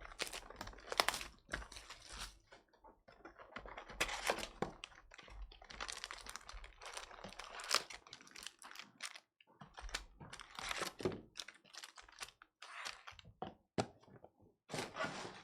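Stack of trading cards being flipped through by hand: a rapid, uneven run of crisp papery clicks and rustles as the cards slide and snap against each other.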